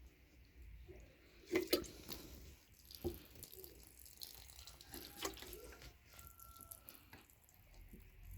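Faint running and dripping water as garden plants are watered, with a few light knocks.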